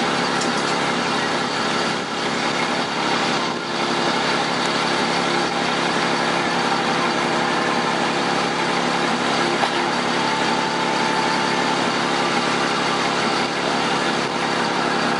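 Bucket truck engine idling steadily.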